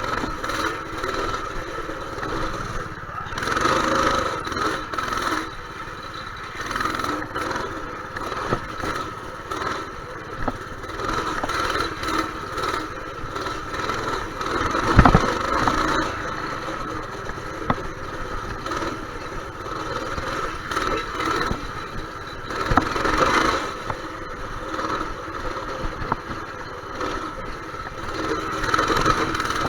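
Dirt bike engine running and revving as it is ridden around a track, swelling louder several times. A single heavy thump about halfway through.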